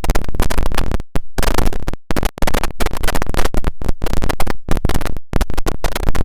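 Digital glitch sound effect: loud, harsh static and noise broken into rapid, irregular stuttering bursts, like a broken phone or radio signal breaking up. Short dead gaps cut in about a second and two seconds in.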